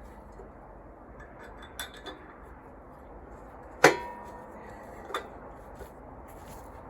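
Steel parts and tools clanking against each other as the welded splitting wedge is fitted back onto a log splitter: a few sharp metal clinks, the loudest just before the four-second mark, which rings on briefly.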